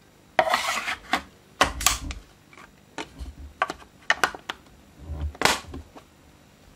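Gas tank of a Tokyo Marui M870 airsoft shotgun being fitted into the gun's stock: a string of sharp plastic and metal clicks and rubbing, with a longer scrape about half a second in and another about five and a half seconds in.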